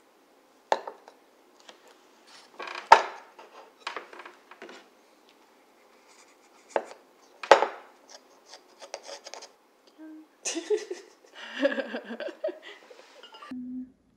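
Serrated bread knife sawing through a sugar-dusted cake on a ceramic plate: irregular scratchy strokes of the blade through the crust, with several sharp knocks.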